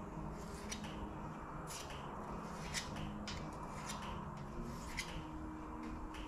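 A filler spreader scraping body filler across a bumper panel in short, irregular strokes.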